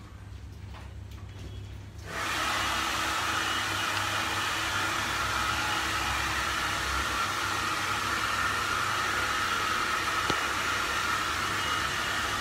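Hand-held hair dryer switched on about two seconds in and running steadily with an even blowing noise and a faint motor whine.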